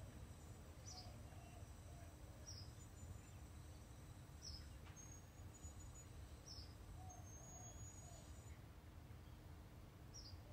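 Near silence: quiet outdoor ambience with a low steady rumble, and a small bird faintly giving short, falling chirps every one to two seconds.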